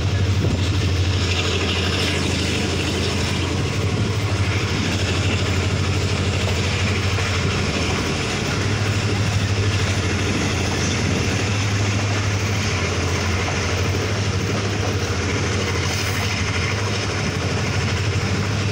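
Tezgam Express passenger train running along the track, heard from an open coach doorway: a steady low rumble of the train and its wheels on the rails.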